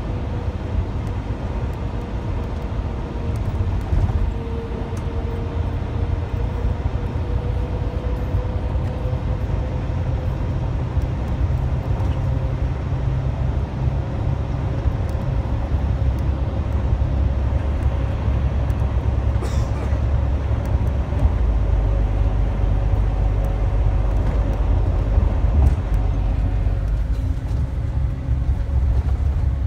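Steady low rumble of a motorcoach's engine and tyres on the road, heard from inside the passenger cabin, with a faint steady whine running through it. It grows a little louder in the second half.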